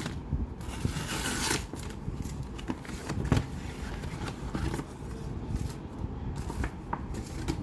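A FedEx courier pack being peeled open by hand: a long tearing sound about a second in, then rustling and crinkling of the packaging with scattered small clicks and taps.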